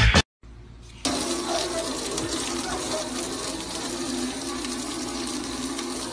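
Stream of water from a garden hose spraying against a glass door: a steady splashing hiss that starts about a second in.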